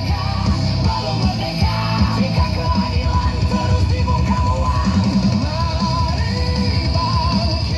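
Loud rock song with a driving drum kit, distorted guitar and yelled vocals, played through a large sound system for a sound check.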